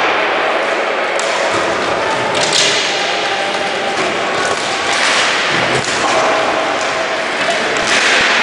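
Roller hockey rink noise: roller skate wheels rolling on the floor, with a run of knocks and clacks from sticks, ball and the rink boards.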